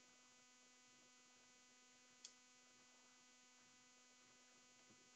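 Near silence: a faint steady electrical hum, with one faint click about two seconds in.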